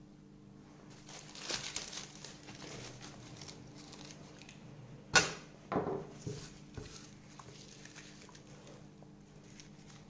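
Dry birch bark crinkling and rustling as it is handled, with one sharp click about halfway through.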